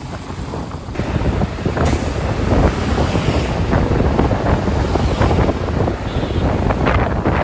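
Wind buffeting the microphone over the rumble of a motorcycle riding a rough, unpaved road, getting louder about a second in.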